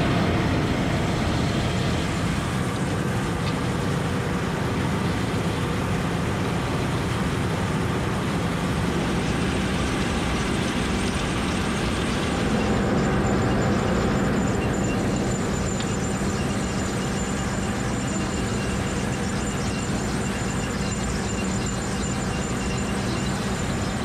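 Potato harvester at work behind a John Deere tractor: a steady mechanical din of the tractor engine and the harvester's chain conveyors rattling as they carry potatoes.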